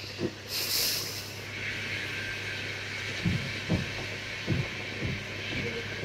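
A few soft thumps and knocks of tools being handled on a repair bench, most of them in the second half, over a steady low hum and hiss. A short higher hiss comes about half a second in.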